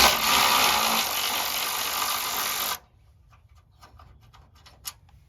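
Cordless power ratchet running for nearly three seconds, spinning out a 10 mm bolt, then stopping abruptly. Faint clicks follow.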